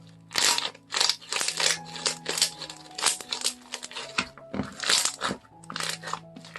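Hands squeezing and pressing homemade slime, a run of crackly, crunchy squishes about two a second, over quiet background music.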